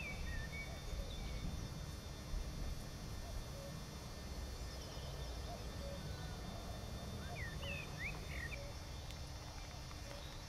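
Outdoor marsh ambience: scattered short bird chirps, a few near the start and a small cluster about eight seconds in, with faint rapid trills, over a steady low rumble.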